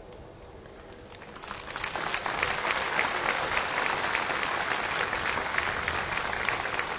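Crowd applauding, swelling over the first two seconds and then holding steady.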